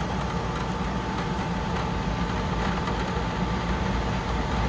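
Steady mechanical background hum, like a fan or air conditioner running, with a faint constant whine.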